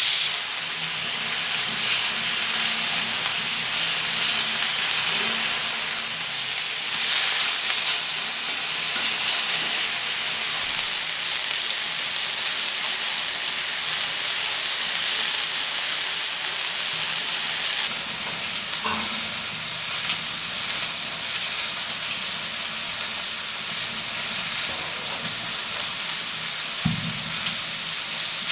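Food sizzling steadily in a frying pan, with a light knock about two-thirds of the way through and another near the end.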